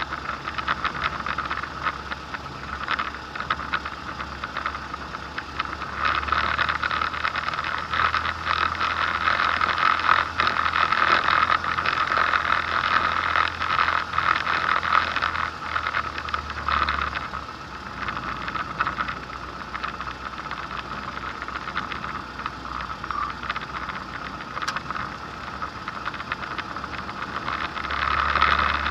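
Ultralight aircraft's propeller engine running at taxi power, getting louder about six seconds in, dropping back after about ten seconds, and picking up again near the end.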